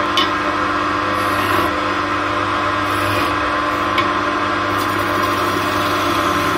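Wood lathe running at a steady hum, with two short clicks, one just after the start and one about four seconds in.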